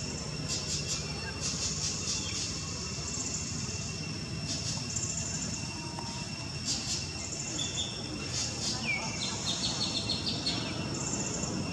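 Outdoor insect drone holding two steady high tones, with bird chirps scattered through and a quick run of about seven chirping notes near the end, over a low, steady background rumble.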